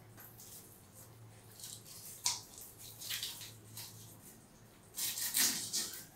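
A knife scraping the scales off a whole milkfish in a series of short, rasping strokes, with a sharp knock about two seconds in and a louder run of scraping near the end.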